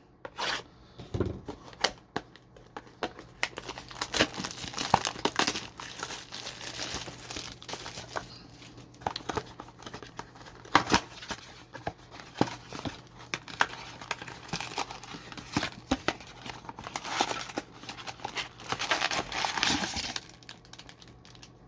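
Plastic shrink wrap being torn and crinkled off a trading-card blaster box, with scattered sharp clicks and crackles from the wrap and cardboard being handled.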